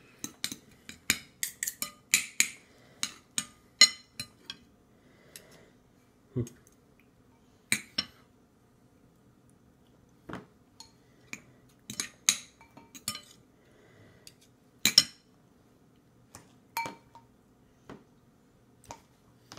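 A metal spoon clinking and scraping against a ceramic bowl as food is scooped out for feeding: a quick run of clinks in the first few seconds, then single clinks every second or two.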